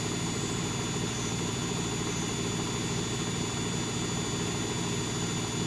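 Servis Sapphire 6055 washing machine in its final spin, the drum running fast and steady with a motor hum and a thin high whine. The spin is set for 1300 rpm, but the owner judges it to be running well short of that speed.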